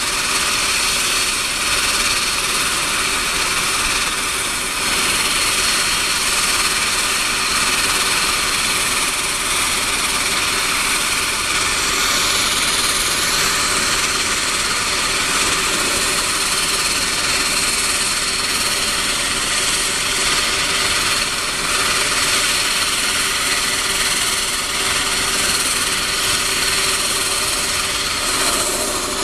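Twin turboprop engines of a Canadair CL-415 water bomber idling on the ground, a steady turbine whine with high tones over a constant rush of propeller noise.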